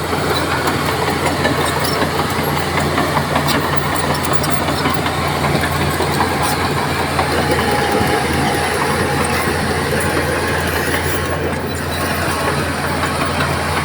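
Crawler bulldozer's diesel engine running steadily, with a few scattered metallic clanks over it.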